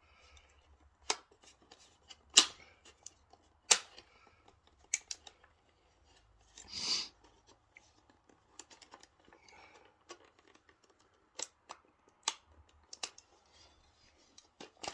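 Sharp plastic clicks and taps, about eight spread out, as a cable tie is worked through a drilled hole in a VW T5 cupholder's plastic mechanism, with one short scraping rasp about seven seconds in.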